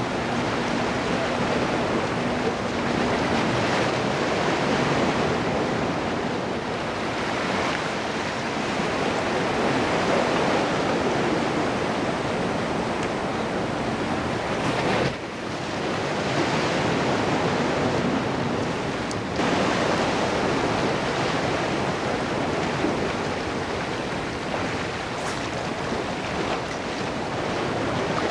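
Waves washing and breaking against boulders at the water's edge, a steady rushing wash mixed with wind buffeting the microphone. The sound drops abruptly for a moment about halfway through.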